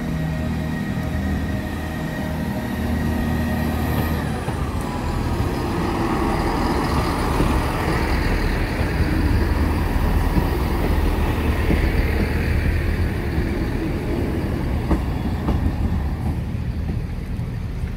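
Class 158 diesel multiple unit passing over a level crossing: a steady engine note as it approaches, then a rising rumble of engine and wheels on the rails, loudest about midway as the coaches go by, with a few sharp clicks late on.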